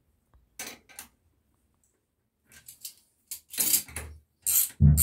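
Steel hand tools clinking on the steel nuts and threaded stud of a washbasin mounting bolt: a pliers wrench and a spanner knocking and scraping as the stud is worked into the wall. A couple of light clinks come near the start, then a quicker run of clinks and rattles in the second half, the loudest near the end.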